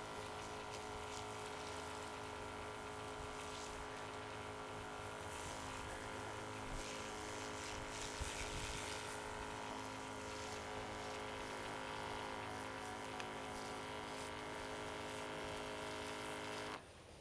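Steady machine hum made of many fixed tones, unchanging, that cuts off abruptly near the end.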